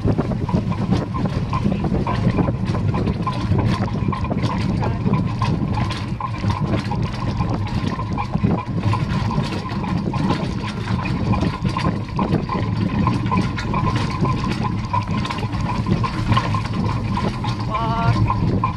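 Horse-drawn wagonette rolling over a dirt and grass track: a steady low rumble with constant rattling and knocking of the carriage, heard through a camera clamped to the wagon's frame.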